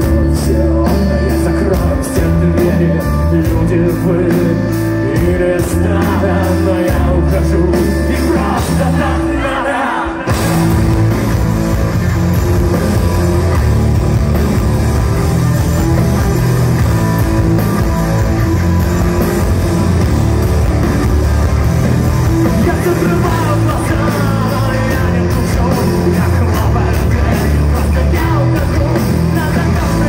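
Rock band playing live and loud: drum kit and electric guitar with a singer's voice over them. About ten seconds in, the music drops away briefly, then the full band comes back in.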